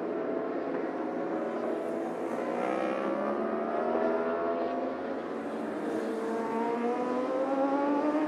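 Endurance racing motorcycle engines running hard. Several overlap, their pitch climbing again and again as they accelerate through the gears.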